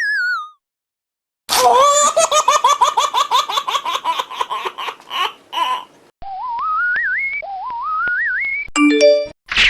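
Edited-in cartoon sound effects: a falling whistle fades out, then a high-pitched laugh of rapid repeated pulses runs for about four seconds. Two rising, wavering whistles follow.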